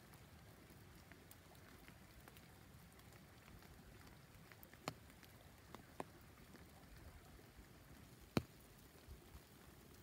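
Near silence of falling first snow on dry leaf litter, with a few scattered soft ticks of flakes or drips landing on the leaves; the sharpest tick comes about eight seconds in.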